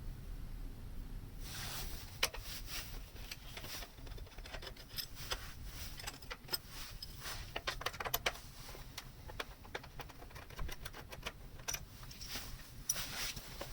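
Irregular clicks and scratches of plastic parts being handled, starting about a second and a half in, coming in dense runs and then sparser.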